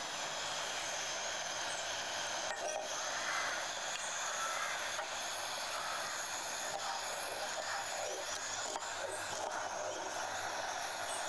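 A steady hiss, with a few faint taps of a kitchen knife chopping herbs on a wooden cutting board.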